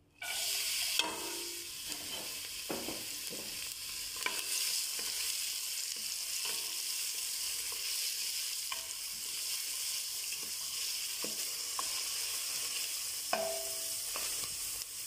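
Diced onion sizzling in hot olive oil in a stainless steel pot, the hiss starting suddenly as it is tipped in. A silicone spatula stirs it, knocking and scraping against the pot now and then.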